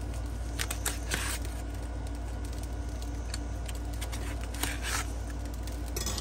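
Knife slicing through a semi-frozen chicken breast on crumpled aluminium foil: a few short scraping, crinkling strokes, a cluster about a second in and more near the end, over a steady low hum.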